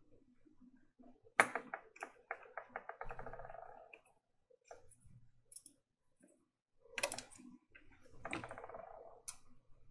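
Metal hand tools and tweezers working at a small chip on a laptop motherboard: bursts of rapid small clicks and scraping ticks, three runs in all. The loudest is a sharp click about a second and a half in.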